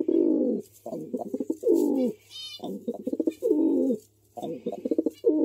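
Pigeon cooing: repeated phrases of a few quick pulsed notes ending in a longer, falling coo, about one phrase a second.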